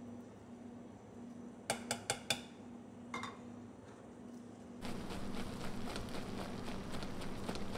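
A few sharp clinks of metal on a stainless saucepan, then, from about five seconds in, a silicone spatula stirring and scraping through molten sugar foaming up with baking soda for dalgona, a dense busy rustle with many small ticks.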